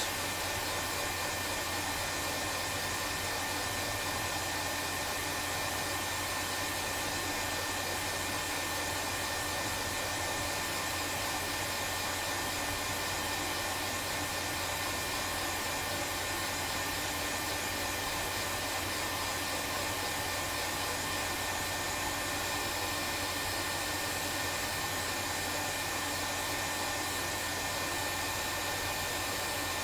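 Hot-air rework station blowing steadily with a thin, steady whistle in the airflow. It is heating a BGA chip to melt its solder balls so that the chip floats into place.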